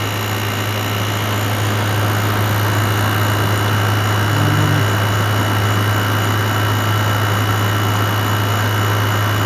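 Midea MAWO5M1WBL window air conditioner running, heard from its outdoor side: a steady low hum under a constant fan whoosh.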